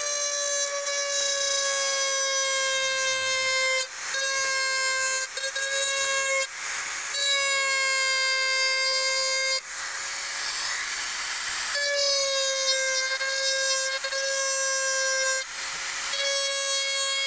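Small high-speed rotary tool with a burr grinding a groove along a crack in a plastic motorbike panel: a steady, high, dentist's-drill-like whine that briefly eases off about five times and settles slightly lower in pitch each time it resumes. This is the crack being ground out ready for hot-air plastic welding.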